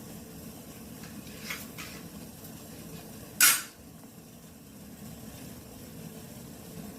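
Cooking pot and utensil sounds: a couple of faint clinks, then one sharp, brief metallic clatter about three and a half seconds in, over a steady low hum.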